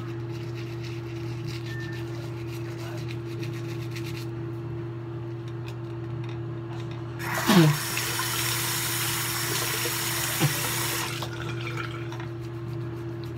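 Electric toothbrush humming steadily. About seven seconds in, the bathroom tap runs into the sink for about four seconds, starting with a brief loud falling sound.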